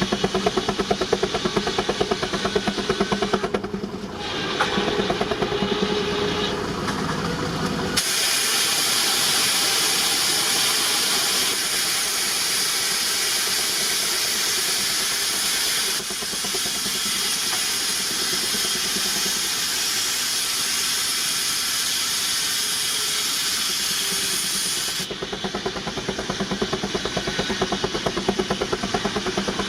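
19-65 Uniflow Baker steam traction engine running under belt load with rapid, even exhaust beats. About eight seconds in, a loud, steady hiss of escaping steam starts abruptly and covers the beats. It stops abruptly about seventeen seconds later, and the engine's beats are heard again.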